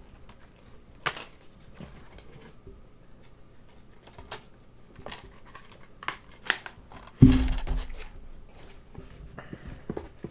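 Plastic DVD and Blu-ray cases being handled and shuffled, with scattered light clicks and knocks and one louder thump about seven seconds in.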